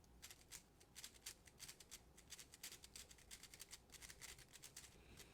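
Faint, irregular clicking of a Rubik's cube's plastic layers being turned by hand, several quick clicks a second.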